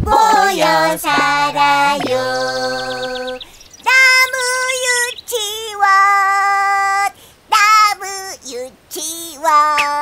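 High, child-like voices singing long held notes, phrase by phrase with short breaks, as in a children's song.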